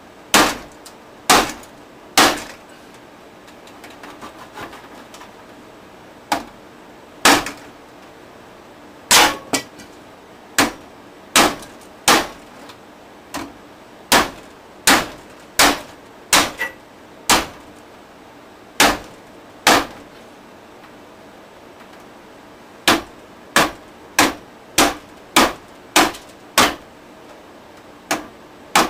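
Claw hammer striking a junk stereo again and again: about thirty single sharp blows, some in quick runs, with pauses of a few seconds between bursts.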